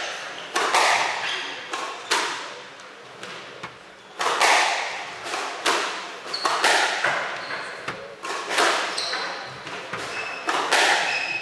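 Squash rally: the ball struck by rackets and smacking off the court walls, roughly one sharp hit a second, each ringing briefly in the enclosed court, with short squeaks of shoes on the wooden floor between hits.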